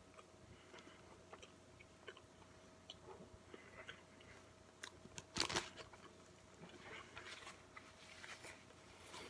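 Faint mouth sounds of a person chewing a bite of burger, small wet clicks and crunches, with one louder burst about five and a half seconds in.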